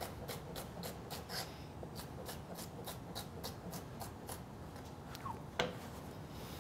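Chef's knife slicing celery ribs on a plastic cutting board: a rapid, even run of light cuts, about five a second, followed by a single sharper knock about five and a half seconds in.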